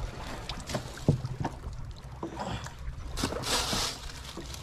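Fish and a plastic cooler box being handled on a wooden boat deck: scattered light knocks and clatter over a steady low rumble of water against the hull, with a brief hissing rush about three seconds in.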